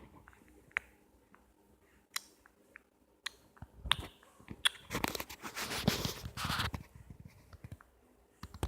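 Four-month-old baby making wet mouth noises: scattered lip smacks and clicks, with a longer, denser run of smacking and sputtering about five seconds in.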